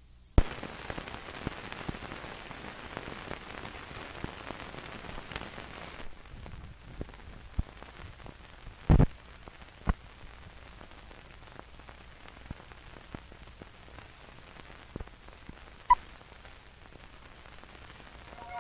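Hiss and scattered clicks and pops of an old film print's soundtrack running over blank leader. A sharp click about half a second in starts the hiss, which drops lower about six seconds in; the loudest pops come about nine, ten and sixteen seconds in.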